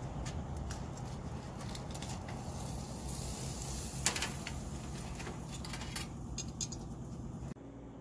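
Metal tongs clinking and tapping against the grill grates, the chicken's wire stand and a wire cooling rack as a beer can chicken is lifted off a gas grill. The sharpest clink comes about four seconds in, over a steady low background noise.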